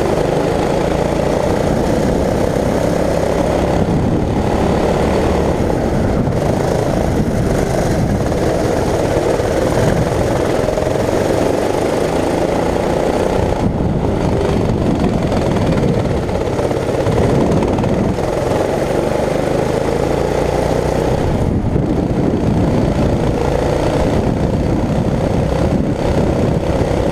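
Club kart's small engine running hard as the kart laps, heard from on board. Its pitch sags and climbs again as the kart slows for corners and accelerates out of them.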